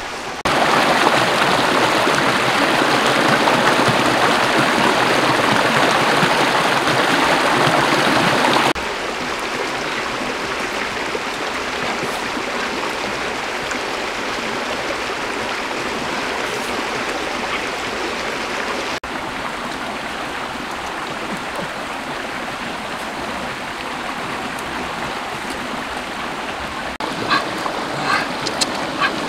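Steady rush of a small rocky stream, loudest for the first several seconds and dropping to a lower level at cuts about 9 and 19 seconds in. Near the end, light clicks and taps of hands handling chilies and limes in a woven basket.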